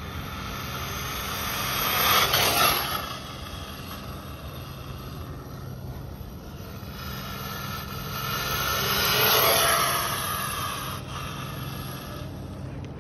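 Battery-powered RC drag truck running on a 2S LiPo, its electric motor whine and tyre noise swelling to a peak and falling away twice, about two and a half and nine and a half seconds in.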